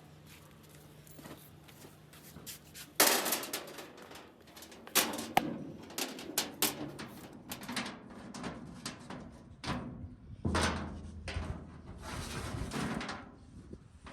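Workshop clatter: a low hum, then a sharp bang about three seconds in, followed by irregular knocks and clanks.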